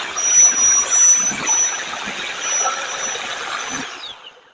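Jigsaw cutting through thin three-ply plywood, the blade and motor running with a steady high whine over a rasping cut, then winding down near the end.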